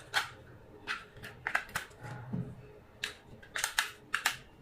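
A series of sharp clicks and snaps, about ten of them at irregular intervals, several in quick pairs.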